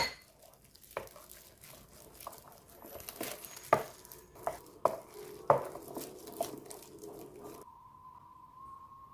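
Wooden spoon stirring thick chili sauce in a glass mixing bowl: irregular wet squishing with sharp taps of the spoon against the glass. The stirring stops about three-quarters of the way in, leaving a faint steady tone.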